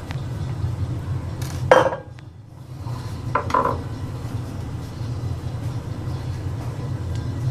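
Hard objects clinking and clattering, the loudest about two seconds in and another a second and a half later, over a steady low hum.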